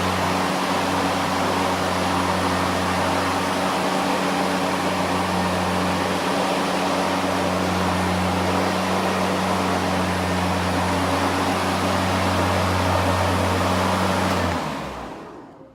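EGO LM2142SP 21-inch battery lawn mower's brushless motor and blade running at speed: a steady whirring hum with a rushing hiss of air. Near the end it is released and winds down quickly to a stop.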